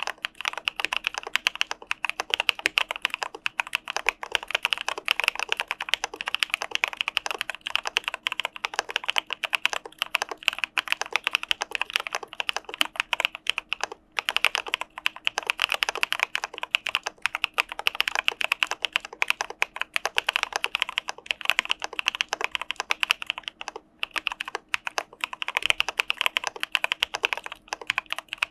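Typing on an Arisu Alice-layout mechanical keyboard with CPSD linear switches: a fast, continuous stream of keystrokes, with short pauses about halfway through and again near the end.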